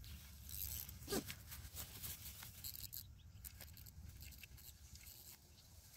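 Quiet outdoor ambience: a low rumble of wind on the microphone with scattered faint clicks and rustles, and one sharper click about a second in.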